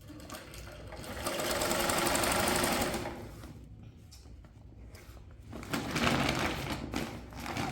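An old sewing machine stitching in two runs: the first from about a second in to three seconds, the second starting just before six seconds and still going at the end, with a short pause between.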